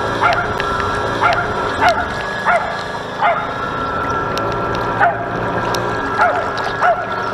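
Short, high yelps falling in pitch, about eight at irregular intervals, typical of a small dog yipping, over the steady whine of the model lifeboat's motor.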